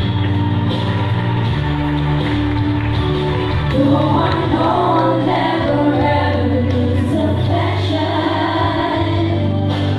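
Live band or backing track playing a slow song with sustained low notes, then several voices singing together from about four seconds in.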